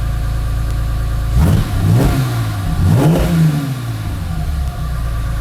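Chevrolet Opala straight-six with a 6-into-2 exhaust header idling, then revved twice, about a second and a half in and again about three seconds in. Each time the pitch rises and falls back before the engine settles to a steady idle.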